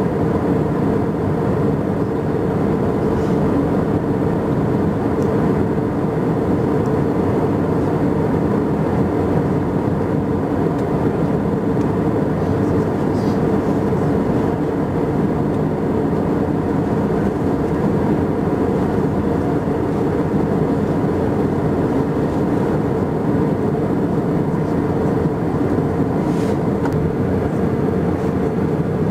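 Airbus A320 cabin noise heard from a window seat over the wing in flight: a steady jet engine and airflow drone with a faint hum of a few steady tones, unchanging throughout.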